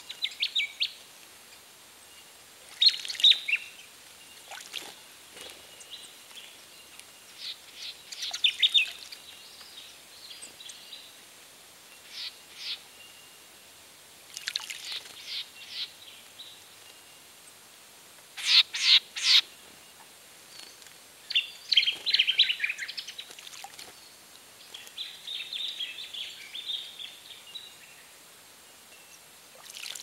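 Small birds chirping and twittering in short high bursts every few seconds, with splashes and wing flutters from birds bathing in a shallow bird bath.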